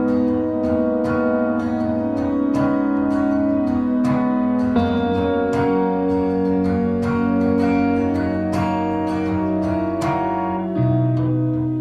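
Background music: a plucked guitar melody with regular note attacks over sustained lower notes.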